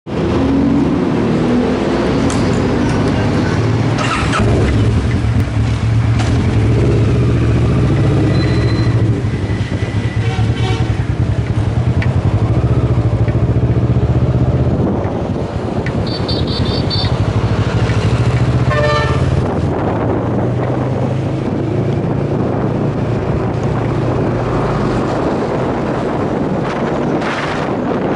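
Motorcycle engine running steadily as the bike pulls away and rides along a highway in traffic, with a few short beeps around the middle and wind on the microphone toward the end.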